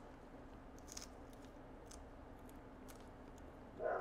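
Faint, scattered clicks of a small hand tool working between the metal tabs of an iPhone 11 battery cell, prying them outward, over a steady low hum. A louder, short sound starts right at the end.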